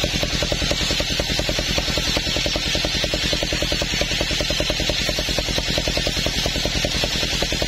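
Circular saw bench ripping a coconut-wood plank: a steady hiss from the blade cutting, over the rapid, even pulsing of the engine that drives it, about nine beats a second.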